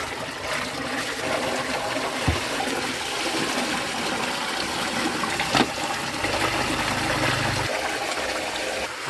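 Water rushing steadily through plumbing, with a sharp knock about halfway through and a low hum for about a second and a half after it.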